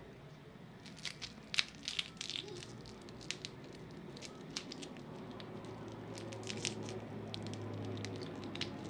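Foil lollipop wrapper crinkling and crackling as it is handled and cut with small scissors. There is a cluster of sharp crackles about a second in, and more near the end.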